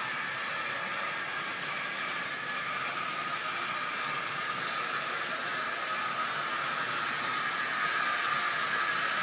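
Model railway train running on the track out of view, a steady whir of its small electric motor and wheels on the rails, slowly getting louder toward the end as it approaches.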